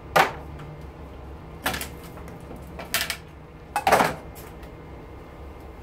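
Metal pot light housing knocking on a sheet-metal workbench as it is handled and set down: four sharp clanks, the first the loudest and the last a quick double knock about four seconds in.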